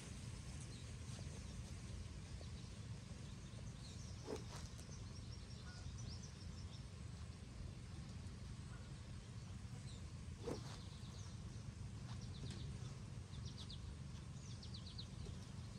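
Faint outdoor ambience: a steady low rumble with small birds chirping now and then, in quick trills near the end, and two soft knocks about four and ten seconds in.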